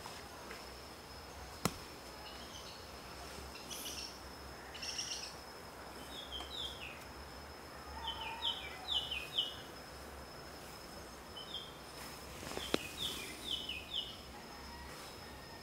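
Birds chirping outdoors in short runs of quick, falling notes, three or four to a run, over a faint steady high-pitched whine. Two sharp clicks, one early and one about three-quarters of the way through.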